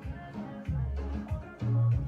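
Music with a heavy bass line, which gets louder near the end.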